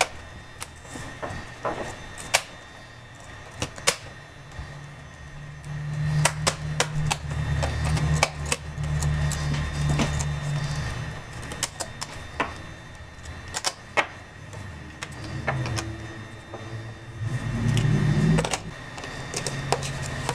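Scattered sharp clicks and taps of plastic laptop parts and small tools being handled on a bench as a Dell Inspiron 1750's hinge trim is worked on and the laptop is closed and turned over. A low steady hum comes in twice, in the middle and again near the end, and is louder than the clicks.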